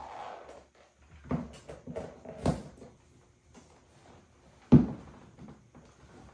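Black patent platform stiletto pumps with six-inch heels knocking on a hard floor as they are put on: a soft rustle at the start, then several sharp clacks, the loudest about three quarters of the way through.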